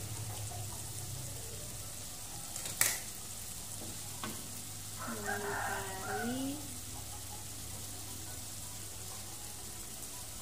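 Chili, shallot and garlic spice paste with curry seasoning sizzling steadily in hot oil in a frying pan, stirred with a metal spatula. A sharp knock about three seconds in, and a short call in the background midway.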